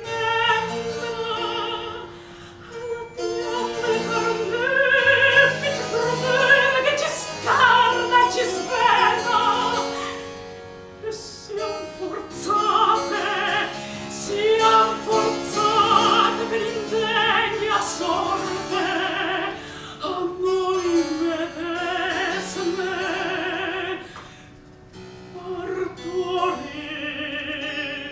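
A mezzo-soprano sings a baroque operatic lament with vibrato, in phrases broken by short pauses, accompanied by harpsichord.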